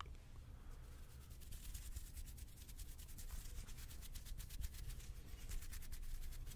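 Hands rubbing softly close to the microphone, with a fine, rapid crackle that thickens from about a second and a half in.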